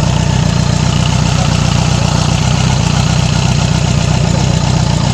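Yamaha R6 inline-four engine idling steadily.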